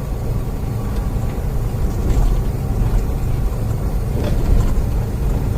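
Steady drone of a semi truck's engine and road noise heard from inside the cab while driving.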